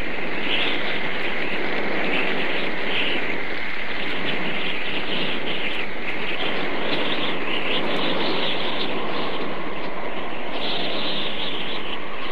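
Hurricane-force wind and driving rain: a loud, steady rushing noise with gusts that surge and ease.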